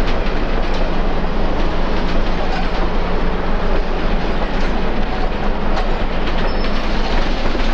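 Santa Fe passenger train of stainless steel cars rolling past, a steady rumble of wheels on rail with a few faint clicks from the rail joints.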